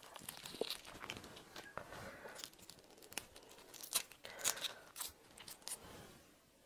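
Shell of a raw red prawn being cracked and peeled off by hand: a run of small irregular crackles and tearing clicks, a little louder past the middle and dying away near the end.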